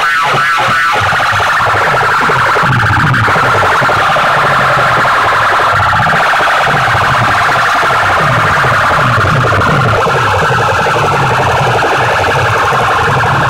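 A wall of horn loudspeakers on a DJ sound rig blares distorted, siren-like electronic music very loudly. A pulsing tone, about three pulses a second, stops about a second in. Underneath, a repeating line of sliding bass notes runs beneath a steady shrill high tone.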